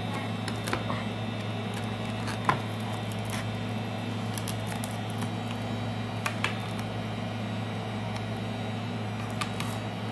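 Scattered small clicks and ticks of a tool prying at cracked iPad 2 glass and its digitizer, the sharpest about two and a half seconds in, over a steady low hum.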